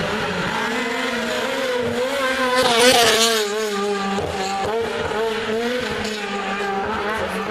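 Rally car's engine under hard acceleration as it passes close by, the pitch rising and dropping again and again through gear changes. It is loudest about three seconds in, with a burst of hiss as it goes past.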